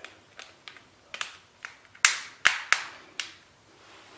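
A string of irregular sharp plastic clicks and taps from a Samsung Galaxy Note 2 being handled as it is put back together for testing, loudest about two seconds in.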